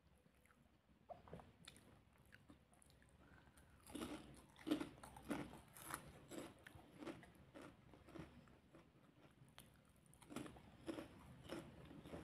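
A person chewing a mouthful of rice and salted fish with crunching, at about two chews a second. It starts about four seconds in, pauses, and picks up again near the end.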